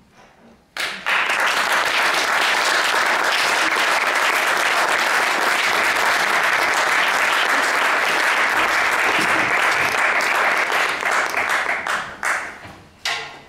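Audience applauding. It starts suddenly about a second in, holds steady, and breaks up into a few scattered claps near the end.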